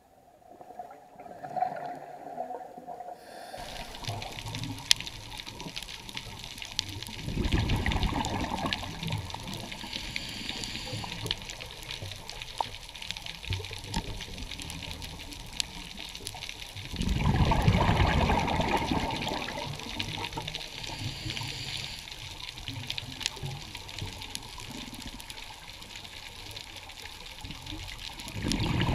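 Scuba diver's regulator exhaust bubbling underwater: three bursts of exhaled bubbles about ten seconds apart, the last near the end, over a steady hiss with faint crackling clicks.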